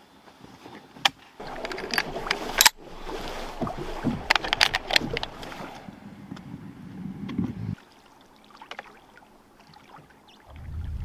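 Knocks, clatter and scraping from a metal boat as a man moves about in it and pushes it off the riverbank with an oar. The sounds stop abruptly about two-thirds in, and a low rushing starts near the end.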